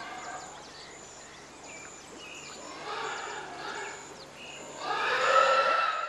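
Pig-barn ambience: small birds chirping in short, high notes repeated every second or so, with quick falling chirps between them. A louder, drawn-out squeal from a pig rises near the end.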